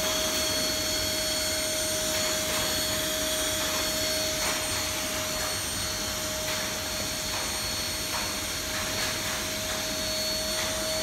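Vacuum cleaner running steadily with a constant whine, its hose sucking the air out of an aluminium foil barrier bag to vacuum-pack a machine for shipping, with faint crackles of the foil as it draws in.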